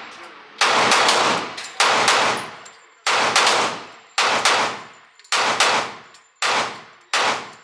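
Glock 30S .45 ACP pistol fired in double taps: about a dozen shots in quick pairs, a new pair roughly every second, each shot echoing in an indoor range.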